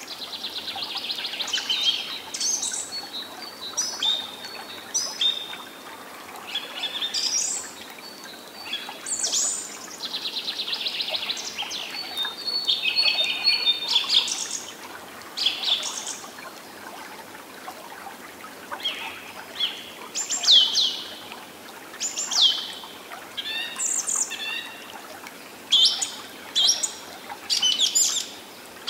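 Songbirds chirping and trilling, many short overlapping calls, with a few quick downward-sweeping whistles in the second half. A faint steady hiss runs underneath.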